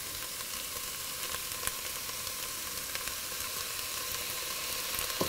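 Chopped onions, celery and shredded carrots sautéing in hot oil in a pot, a steady frying sizzle with a few faint crackles.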